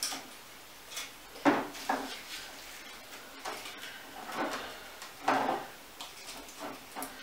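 Handling sounds as dried twigs and flower stems are worked into the narrow neck of a glass wine bottle: short, irregular rustles and light knocks, a few louder ones scattered through.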